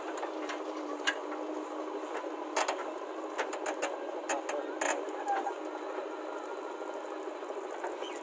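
JCB 3DX backhoe loader's diesel engine running under hydraulic load as its rear bucket digs into stony soil and lifts it, with a few sharp metallic knocks from the bucket and linkage.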